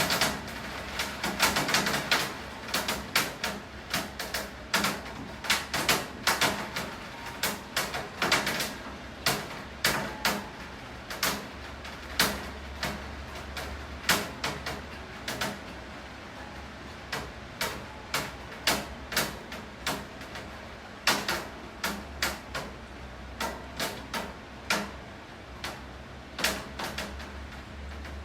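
Heavy raindrops dripping onto a hard surface: irregular sharp taps, a few a second and densest near the start, over a steady hiss of rain and a low hum.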